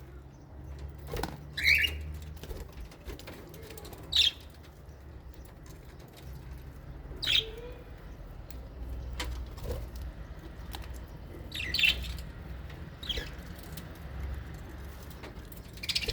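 Small parrots in an aviary, lovebirds and budgerigars, giving about five short, scattered chirps, with wing flapping and small clicks in between, over a low steady rumble.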